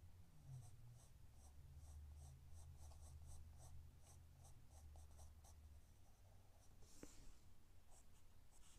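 Graphite pencil shading on drawing paper: faint, quick scratching strokes, about three a second, that stop about six seconds in.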